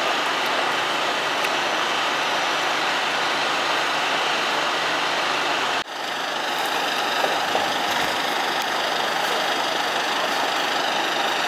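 Scania P280 fire engine's diesel engine running steadily at low revs. The sound drops out for an instant about halfway through.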